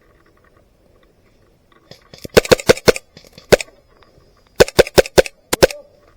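An airsoft gun firing a string of sharp, loud shots: a quick run of four about two seconds in, a single shot, another quick four, then two more near the end.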